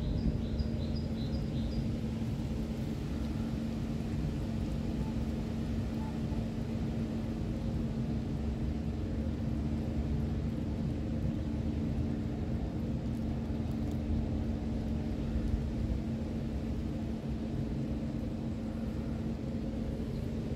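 Steady low rumble with a constant hum underneath. A bird chirps quickly about six times in the first two seconds.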